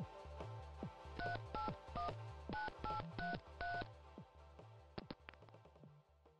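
Touch-tone phone keypad dialing: seven short two-tone beeps in quick succession, over low background music. A couple of sharp clicks follow about a second later.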